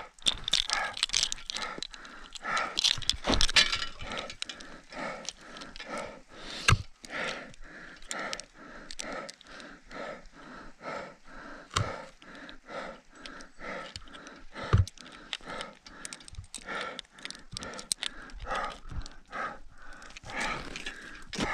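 A mountaineer panting hard and fast, about two breaths a second, from the exertion of climbing at high altitude. A few sharp knocks come from the ice axe and climbing hardware on the snow and ice.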